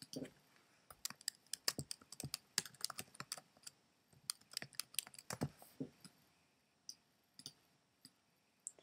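Typing on a computer keyboard: a quick run of keystrokes for about five seconds, then a few scattered clicks near the end.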